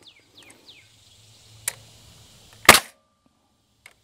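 Finish nailer shooting a nail into the timber rafter peak: one sharp shot about two and a half seconds in, with a lighter click about a second before it.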